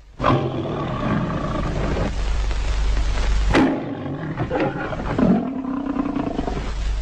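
Dire tiger sound effect: big-cat roars and growls. A loud roar breaks out suddenly, a second roar starts sharply about halfway through, and a lower, drawn-out growling roar follows near the end.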